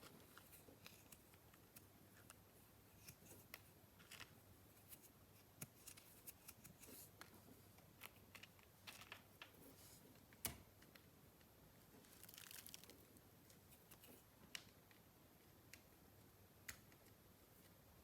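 Near silence: room tone with scattered faint clicks and rustles, and one sharper click about ten seconds in.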